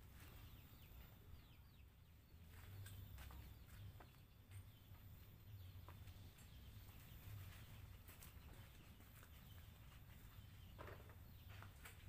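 Near silence: faint outdoor background with a low rumble, scattered faint clicks and faint high chirps.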